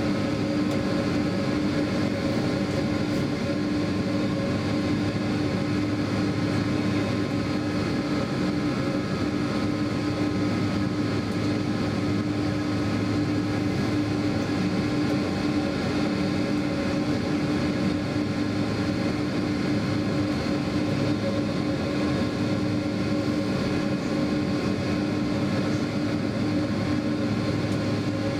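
Steady cabin drone inside a Boeing 767 on the ground: the jet engines at idle while taxiing, along with the cabin air system. Several steady hum tones run through it.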